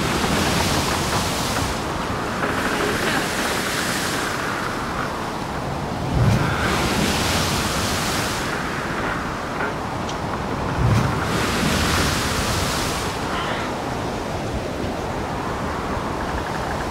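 Small surf waves washing onto a shallow sandy beach: a steady rushing hiss that swells and fades every few seconds. Wind buffets the microphone with a few short low thumps.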